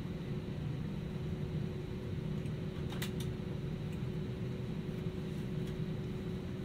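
Steady cabin noise inside an Airbus A320: a low rumble of air and machinery with a faint steady hum. A couple of faint clicks come about three seconds in.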